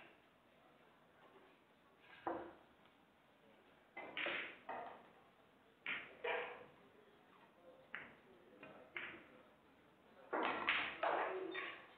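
Pool balls clicking: the cue tip striking the cue ball, then ball-on-ball and cushion knocks, as single sharp clicks spread out with short gaps between them. A denser, louder run of knocks comes near the end.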